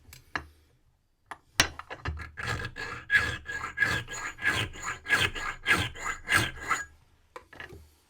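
A hand file rasping back and forth across a brass key, about one and a half strokes a second, to file down the marks while impressioning a key. A sharp click comes just before the filing starts, with a few light clicks before and after.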